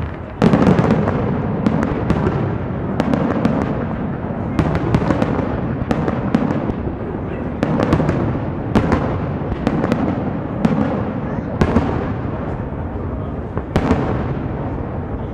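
Fireworks display: aerial shells bursting in quick succession, sharp cracks over a continuous rumble, the loudest bang about half a second in.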